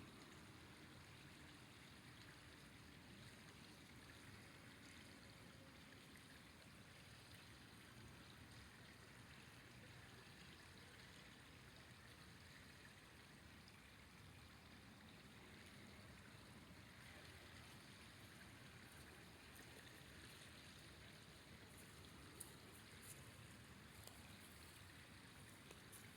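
Faint, steady rush of flowing river water, with a few brief clicks near the end.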